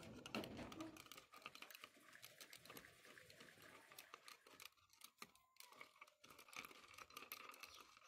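Faint, dense crackling of tiny bubbles fizzing in a glass of acid as it works on rusty steel lock parts.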